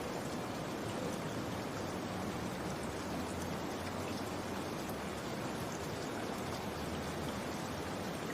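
Steady rain falling, an even hiss of drops with no change in strength.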